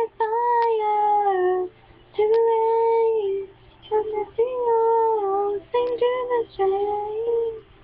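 A girl singing solo, long held notes in phrases of one to two seconds with short breaks for breath between them. She sings with a cold and allergies by her own account.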